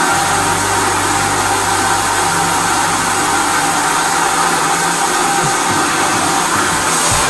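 High-pressure drain jetter running, its water jet spraying through a turbo drill nozzle inside a blocked toilet drain pipe: a steady rushing hiss with a low hum underneath.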